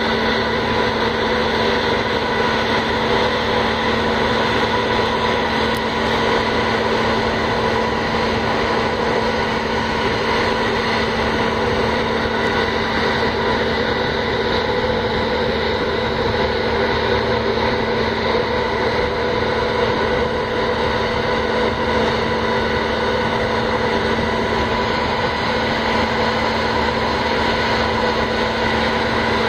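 Steady drone of a moored ferry's engines and onboard machinery: a constant hum with several steady tones over a wash of noise, unchanging throughout.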